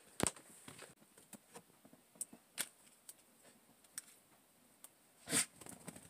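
Faint movement sounds of walking out through a doorway: scattered light clicks and rustles, with a sharper click right at the start and a louder short rustle about five seconds in.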